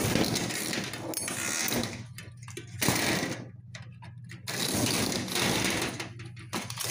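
Handling noise of metal parts rattling and scraping, in uneven stretches with two short pauses, as a flexible metal wiring whip is connected to an LED lay-in light fixture. A steady low hum runs underneath.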